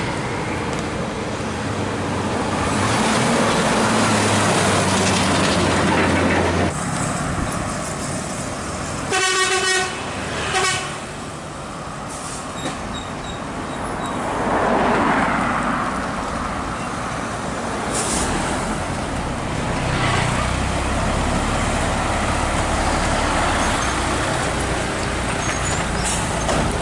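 Traffic noise with a Hino 500 FM320TI diesel tractor truck and lowboy trailer driving past, its noise swelling about fourteen to fifteen seconds in. A horn toots twice, about nine and ten and a half seconds in.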